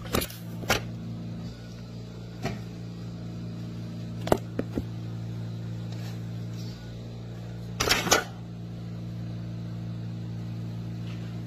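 A steady low hum of a kitchen appliance running. Over it come scattered sharp clicks and knocks of dishes and utensils being handled at a kitchen sink, with a louder clatter about eight seconds in.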